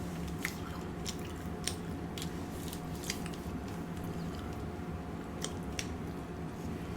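Close-miked chewing of food: a dozen or so irregular wet mouth clicks and smacks over a steady low hum.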